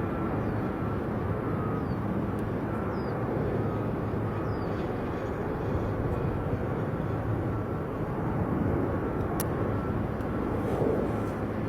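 Steady engine rumble of a jet airliner, with one sharp click about nine seconds in.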